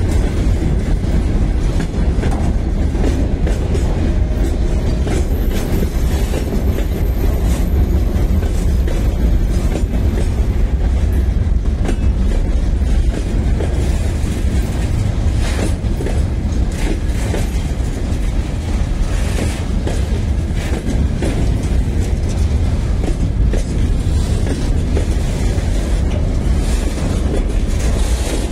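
Freight train of open-top gondola wagons rolling slowly past close by: a steady rumble of wheels on rail, with occasional clacks as wheelsets cross rail joints.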